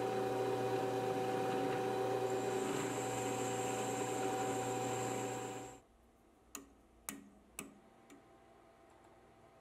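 A drilling machine's spindle running steadily while a drill bit bores a hole through a collar, with a high whine joining about two seconds in. The machine sound cuts off about six seconds in, and a few faint, sharp clicks follow.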